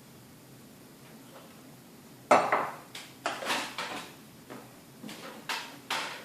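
Metal parts of a car audio amplifier's housing clattering and clinking as they are handled and fitted back together: one loud clatter a little over two seconds in, then a run of shorter knocks.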